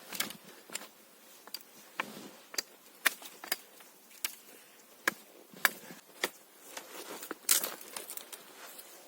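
A series of sharp, irregular knocks and clicks, a dozen or so, spaced about half a second to a second apart, with a longer scraping crackle a little past the middle.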